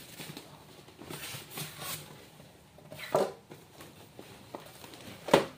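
Rustling and crinkling of a foam packing sheet and styrofoam inserts being handled, with a short sharp squeak about three seconds in and a louder, sharper one near the end.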